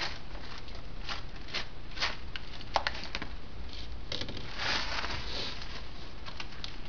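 Clear plastic bag of small steel nuts crinkling as it is handled, with scattered light clicks of nuts being picked up and set down on the workbench.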